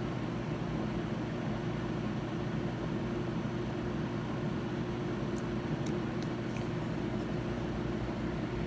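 Steady hum of a cooling fan running, with a few faint clicks about five to seven seconds in.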